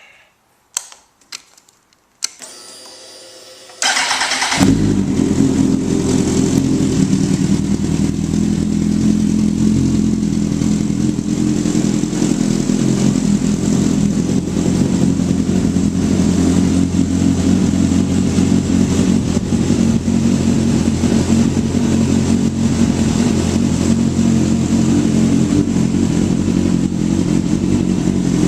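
A 2008 Kawasaki ZX-10R's inline-four engine is started. A few clicks come first, then a whir of cranking for about a second and a half. About four seconds in the engine catches and settles into a steady idle.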